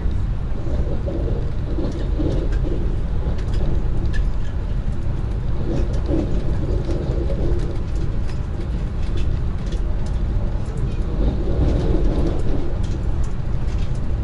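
Steady low rumble of a Lastochka (Siemens Desiro RUS) electric train running along the line, heard inside the carriage, with faint scattered clicks over it.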